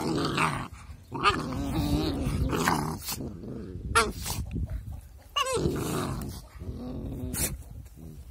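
Puppies play-fighting, growling in long rough stretches broken by a few short, sharp sounds.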